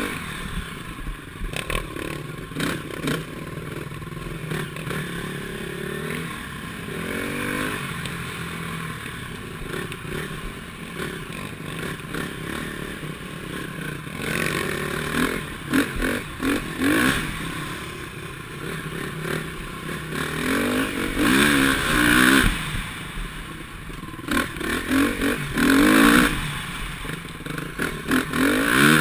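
KTM 350 SX-F's single-cylinder four-stroke engine being ridden hard on a dirt trail, the revs rising and falling again and again with throttle and gear changes, louder bursts of throttle in the second half. The bike clatters and scrapes over the rough ground.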